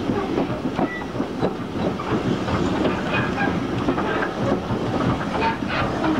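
Railway passenger coach running along the line, its wheels knocking and clicking irregularly over the rail joints over a steady rumble and rattle, heard from an open carriage window.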